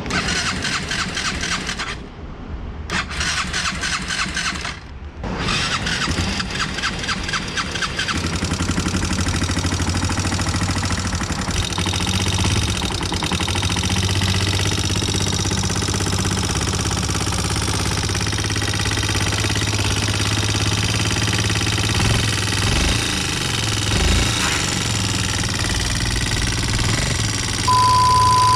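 Yamaha Serow 225's single-cylinder four-stroke engine started and running with a harsh, fast mechanical clatter for the first several seconds, broken twice briefly, then settling into a steady idle that still carries a knock: the abnormal noise of an engine damaged by oil starvation after the wrong oil filter was fitted. Near the end a steady beep tone sounds.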